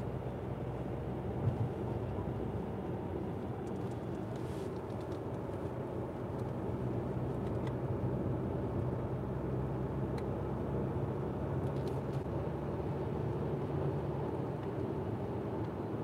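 Steady road and engine noise of a moving car, heard from inside the cabin, with a brief bump about one and a half seconds in.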